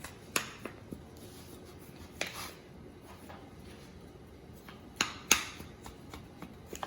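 Kitchen utensils and dishes clinking and knocking a few separate times, the loudest pair of knocks about five seconds in.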